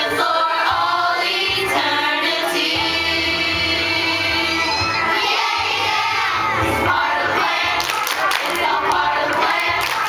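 Children's choir singing in unison over a musical accompaniment with a steady bass line. A few hand claps come in near the end.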